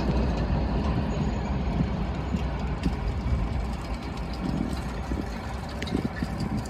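Low rumble of a freight train rolling away from the crossing, fading steadily, with scattered light clicks.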